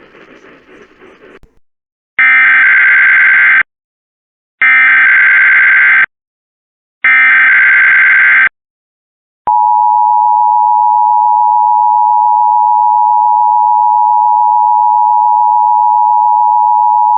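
Emergency Alert System test tones off the radio: three loud bursts of warbling digital SAME header data, then the EAS two-tone attention signal, a steady dual tone held for about eight seconds. It comes after a second or so of faint hiss.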